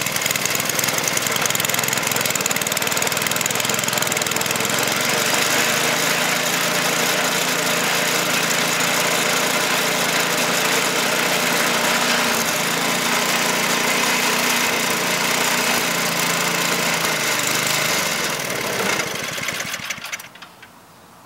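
Toro 421 snowblower engine running steadily after a cold start, with the exhaust of a muffler that needs replacing; near the end it is shut off and winds down to a stop.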